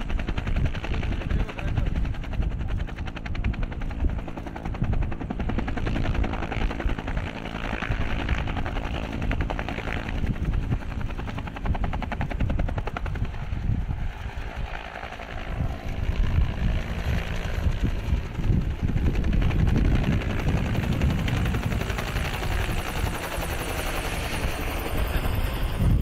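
UH-1 Huey military helicopter running, its two-blade rotor beating in a fast, steady rhythm over the engine's continuous drone, as it sits on the ground and then flies.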